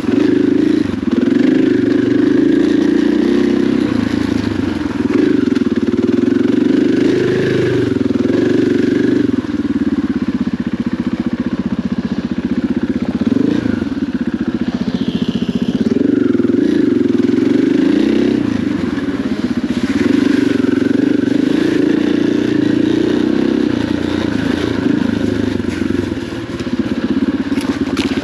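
Dirt bike engine running under way, its pitch rising and falling as the throttle is opened and eased off.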